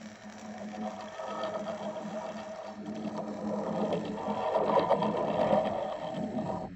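Custom Godzilla breath-charge sound effect: an electric buzzing charge that builds steadily louder for several seconds, then cuts off abruptly.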